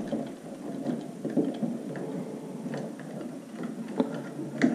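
Small handling noises of a plastic twist-on wire connector being screwed onto twisted wire leads: faint rustling with scattered small clicks, and a sharper click near the end.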